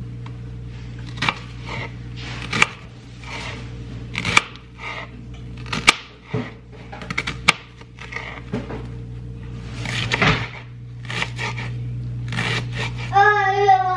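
Kitchen knife cutting a red onion on a plastic cutting board: irregular knocks of the blade against the board, over a steady low hum. Near the end a cat meows once, a long call falling in pitch.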